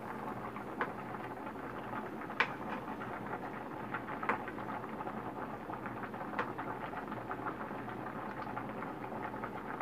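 Kitchen knife slicing a hard-boiled egg into rounds on a plastic cutting board, the blade knocking lightly on the board a few separate times, over a steady background hum.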